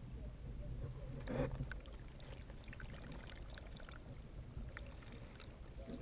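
Muffled low rumble of moving water heard from a camera submerged in a stream, with one louder knock or splash about a second and a half in and scattered small clicks after it.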